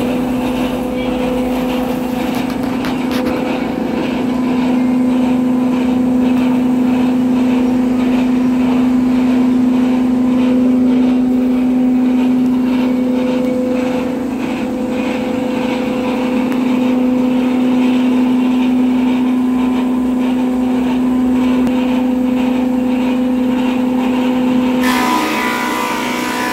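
An electric power tool's motor running at a steady speed with a constant hum, and a short burst of louder hissing noise near the end.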